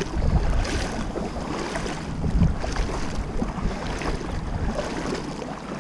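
Wind buffeting the microphone over a steady rush of flowing river water; the low wind rumble eases near the end.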